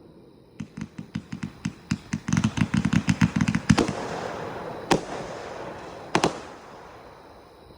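A 238-shot firework cake firing: a volley of sharp bangs that come faster and faster, then one lone bang and a quick double bang, with the reports fading away afterwards.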